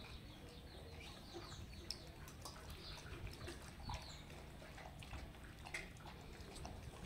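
German shepherd crunching dry kibble from a stainless steel bowl: faint, irregular crunches and clicks, a few of them louder.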